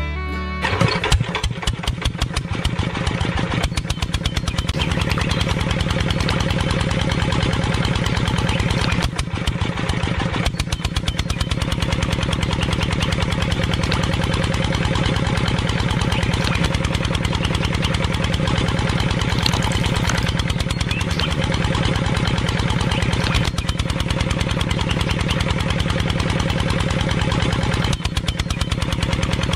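Engine of a miniature stationary engine model driving a toy rice mill: it starts about half a second in and then runs steadily with a rapid, even pulse.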